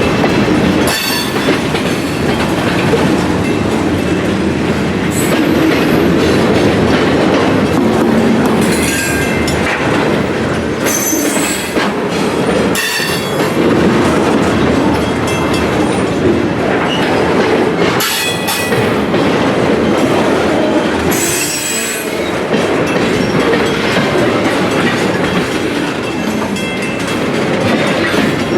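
A train rolling past at close range: a steady rumble of wheels on rail with clickety-clack, and short high-pitched wheel squeals several times.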